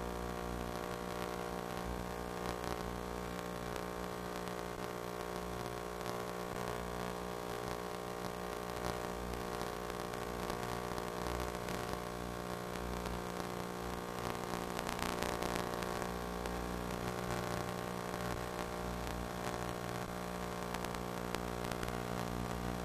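Steady electrical hum made of many fixed tones, under a constant static hiss, as carried by an FPV aircraft's video-link audio.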